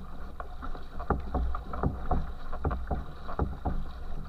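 Water churning and splashing at the stern of a racing canoe under way, with sharp splashes about two a second from the paddle strokes over a steady low rumble.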